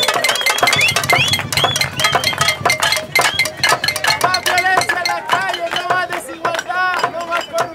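Protest crowd banging pots and pans in a cacerolazo: a rapid, irregular clatter of many metal strikes, with voices shouting over it.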